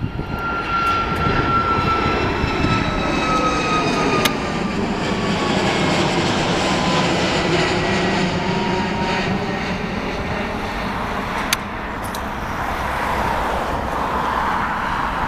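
Boeing 737 MAX 8-200's CFM LEAP-1B turbofans at climb power just after takeoff: a loud, steady jet rumble with a fan whine that slowly falls in pitch as the airliner passes and draws away.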